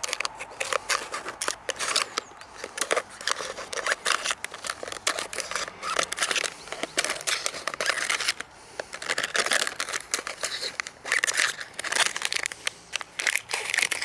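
Victorinox scissors cutting through a thin plastic cup: a long run of crisp, repeated snips with the plastic crackling as it is cut.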